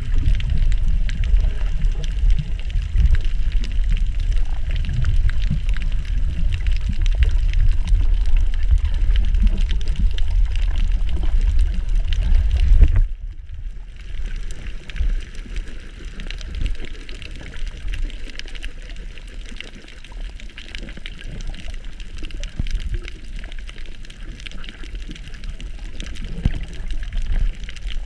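Underwater water noise picked up by a camera in a waterproof housing while snorkeling over a reef: a heavy, muffled low rumble of moving water for about the first half, which drops off suddenly to a quieter wash with faint crackling.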